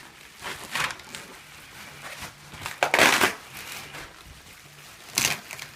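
Plastic mattress wrapping rustling and crinkling in bursts as the mattress is handled, loudest about three seconds in.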